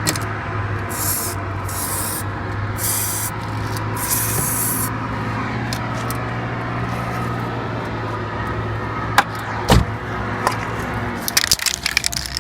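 Spray paint hissing out in several short bursts over the first few seconds, coating a sanded, rust-repaired car sill. A steady low hum runs underneath, and a few clicks and knocks come near the end.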